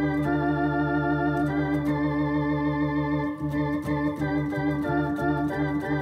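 Welson Globe-Trotter combo organ playing chords through its built-in simulated Leslie effect set to fast, giving the held notes a quick rotary warble. About halfway through the chord changes and the notes become choppier.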